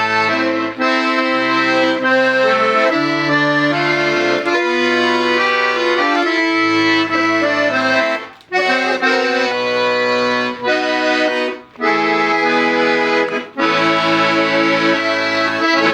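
Hohner Concerto III piano accordion being played: sustained reedy chords over a stepping bass line, with short breaks between phrases in the second half.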